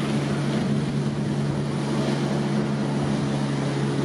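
Helicopter running, a steady engine drone with a constant low hum.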